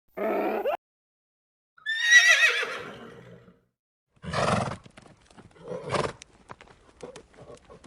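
Horse sound effect: a short call at the start, then a long, warbling whinny that falls in pitch about two seconds in. Two short, loud bursts follow, then scattered hoof clops.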